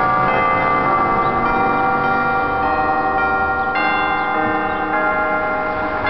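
Church bell in a belfry ringing the noon hour, struck about once a second, each stroke ringing on into the next.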